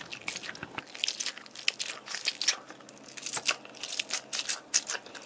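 Rubber squishy toy squeezed by hand, its chunky blue putty filling squishing out with a run of irregular small crackles and crunches.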